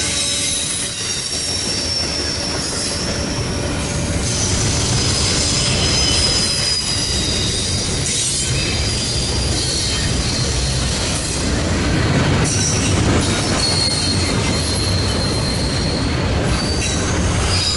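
Freight train cars rolling past with steady low rumble and wheel squeal: thin high-pitched squeals that come and go over the rumble.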